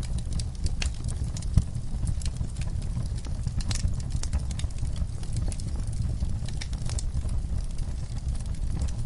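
Wood fire burning in a fireplace: a steady low rumble of flames with frequent irregular crackles and small pops, one louder pop about one and a half seconds in.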